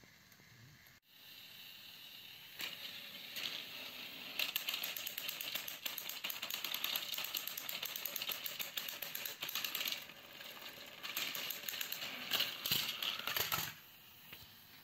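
Battery-powered plastic toy train engines running along plastic track: a fast, continuous clicking rattle of wheels and gears, starting about a second in, dipping briefly, then stopping abruptly near the end.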